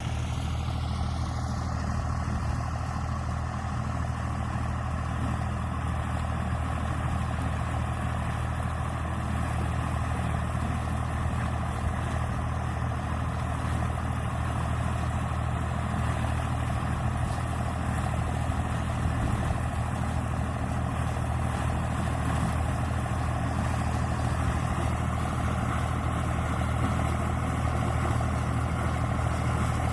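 IMT 539 tractor's diesel engine running steadily at a constant speed, a deep drone with broad mechanical noise over it, as it works a SIP Tornado 35 corn picker.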